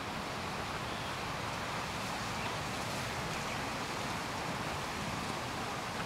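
Steady wind: gusts buffeting the microphone and rustling through palm fronds.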